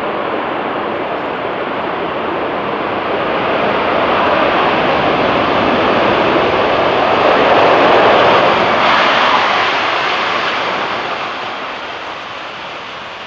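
Large jet aircraft passing close by, its engine roar swelling to a peak about eight seconds in and then fading away.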